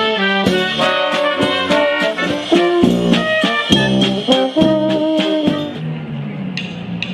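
Military brass band playing a dance tune, horns and tubas over a steady drum beat; the drumming drops out about six seconds in and the brass holds on.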